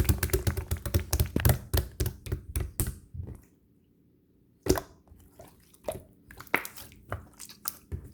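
A rapid run of sharp clicks and taps for about three seconds, then a pause of about a second, then a few scattered knocks and clicks.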